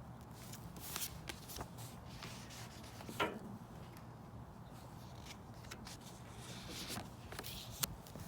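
Paper and pen handling sounds: irregular rustles and scratches of writing and shifting pages, with a few sharper ones about a second in, just after three seconds, and near the end, over a steady low background hum.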